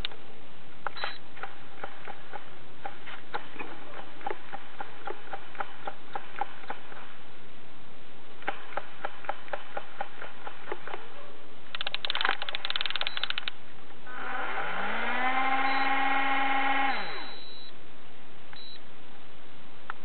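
Daiwa Super Tanacom EX 60 electric fishing reel: its spool clicks rapidly and evenly as it turns, with a short faster burst of clicking. Then the reel's electric motor spins up with a rising whine, runs steadily for about three seconds and winds down. Short high electronic beeps come from the reel in between.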